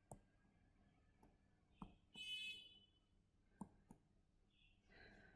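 Near silence broken by a few faint clicks and a brief faint squeak about two seconds in: a digital pen tapping and drawing on a tablet screen.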